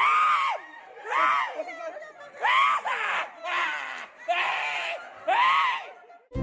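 A man screaming in a series of short, high-pitched cries, about one a second, as a needle goes into his upper arm: a man terrified of injections.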